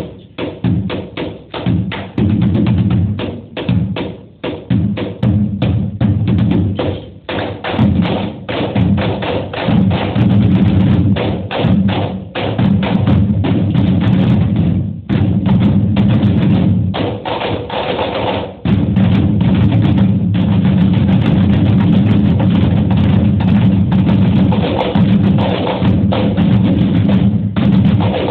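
Percussion ensemble drumming on upturned plastic buckets with drumsticks, many players striking in rhythm. It starts as separate sharp strokes with short gaps, grows denser, and about two-thirds of the way through turns into steady, rapid playing without pauses.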